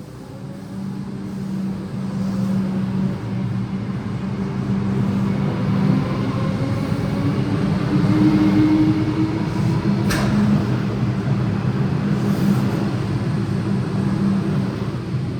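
Comeng electric suburban train pulling away and accelerating. A steady low hum grows louder while motor whines rise slowly in pitch, and there is one sharp click about ten seconds in.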